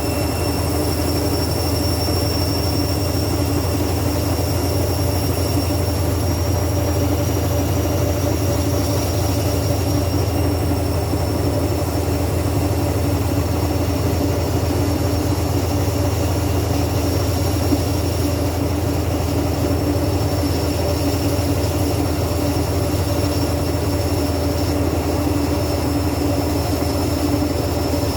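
Washing machine running with a loud, steady low hum and a faint high whine above it, unchanging throughout; the uploader describes the machine as broken and burning.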